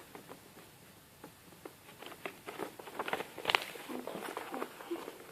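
A sheet of plain paper being handled, folded and creased by hand: irregular crisp crackles and taps, busier in the second half.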